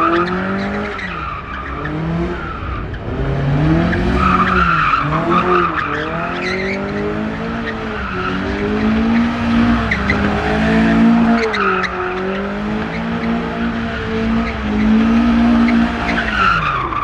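Car drifting: the engine revs up and down repeatedly under throttle while the tyres squeal in bursts as they break traction.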